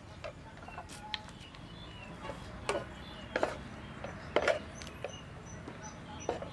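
Spatula knocking and scraping in a frying pan as stir-fried beef with ginger is tossed and scooped out, in irregular sharp clacks, the loudest about four and a half seconds in.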